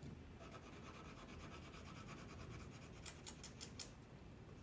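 Colored pencil shading back and forth on paper: a faint, fast scratching, stronger for about a second near the end.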